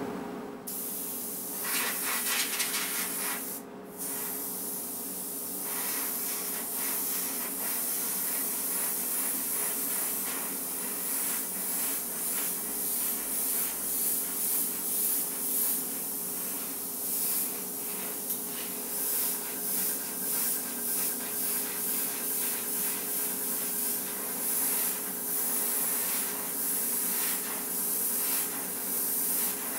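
Airbrush spraying paint, a hiss that comes and goes in many short bursts as the trigger is worked, about one or two a second in the later part. A steady motor hum runs underneath.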